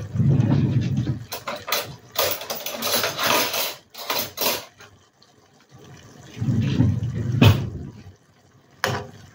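Water running in a few short spurts with pauses between them, and a few sharp clicks.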